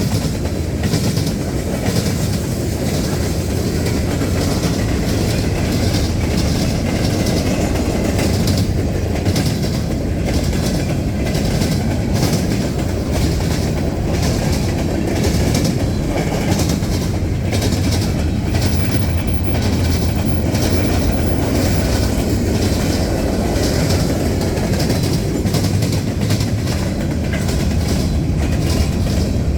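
A CSX trash train's freight cars rolling steadily past at close range, with the steel wheels clacking over the rail joints.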